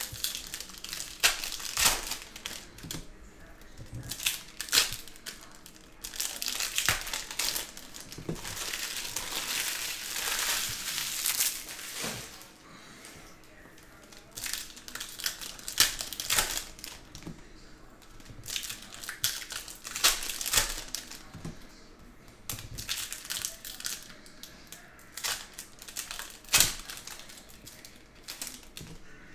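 Foil Upper Deck hockey card packs being torn open and crinkled by hand, with irregular sharp crackles and a longer stretch of steady crinkling about a third of the way in. The wrappers are heavily glued at the top and really rough to rip.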